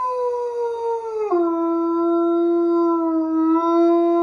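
A large pale dog howling: one long unbroken howl whose pitch drops sharply about a second in and is then held steady.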